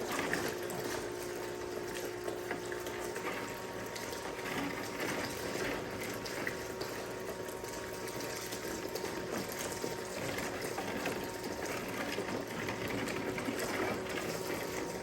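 12-volt pump of a small bucket dredge running steadily with a faint whine, water sucking and splashing through the suction nozzle in a tub, with scattered small ticks.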